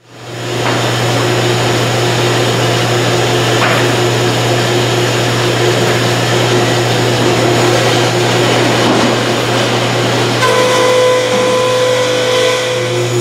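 Sawmill machinery, a board edger with its saws, running steadily as a loud constant hum that fades in at the start. A higher steady tone joins about ten and a half seconds in and stops near the end.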